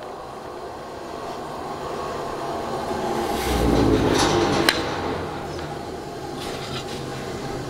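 A workshop machine running with a steady hum that swells and then eases. Wooden drawer parts are handled on the bench, with one sharp wooden knock just before five seconds in.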